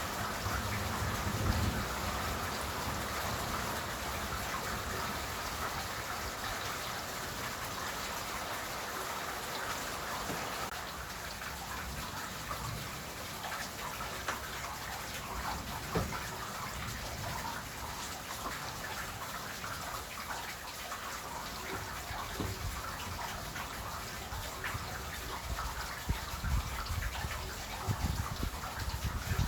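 Steady summer rain falling, with individual drops ticking close to the microphone; the rain eases a little about a third of the way in. Short low rumbles come near the end.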